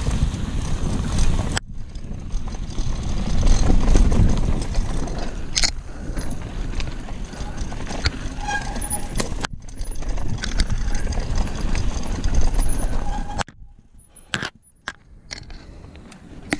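Wind rumbling on the microphone with scattered clattering and rattles, broken by abrupt cuts several times and quieter for the last few seconds.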